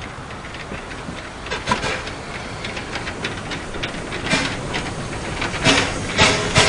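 Small steam tram locomotive rolling slowly nearer: its exhaust chuffs, few at first, come about twice a second and grow louder near the end, over a steady steam hiss.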